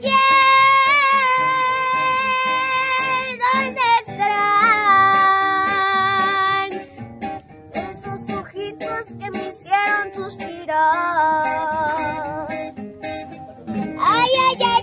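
A boy singing solo with acoustic guitar accompaniment, holding long sustained notes separated by short breaths.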